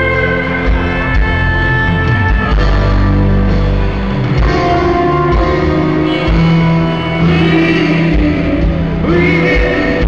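Live rock band playing loud through an arena PA, with sustained guitar and keyboard tones over a steady bass, recorded from the audience.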